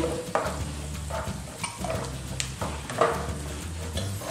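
A plastic spoon stirring and scraping diced cheese and onion around a nonstick frying pan, a short scrape every half second to a second, over a steady low hum.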